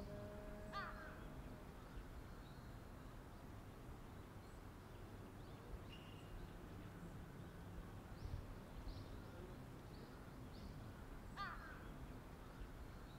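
A crow caws twice, once about a second in and again near the end, over quiet outdoor ambience with faint high chirps of small birds.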